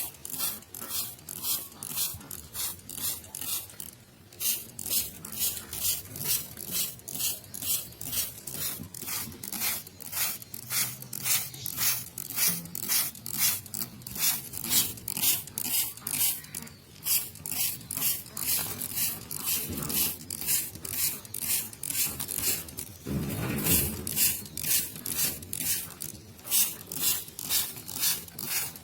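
Hand trigger spray bottle spraying water in quick, even squirts, about two a second. A duller, louder bump comes near the end.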